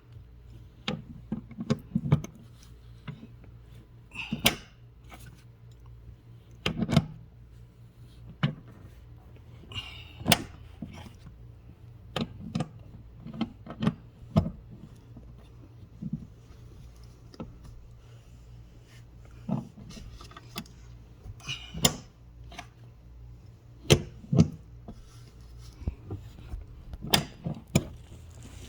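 Irregular metal clicks, clinks and knocks of a socket and breaker bar being fitted and worked against a rust-seized seat-belt anchor bolt, a sharp strike every second or two.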